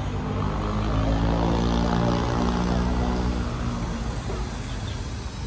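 A propeller aircraft flying over, its engine sound swelling and then fading as it passes.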